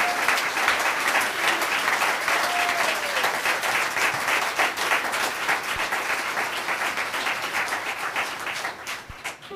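Audience applauding: many hands clapping together, easing off and stopping shortly before the end.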